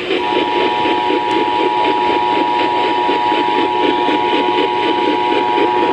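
Emergency Alert System attention signal: the two-tone alert of 853 Hz and 960 Hz sounding together, starting a fraction of a second in and held steady, over a noisy background.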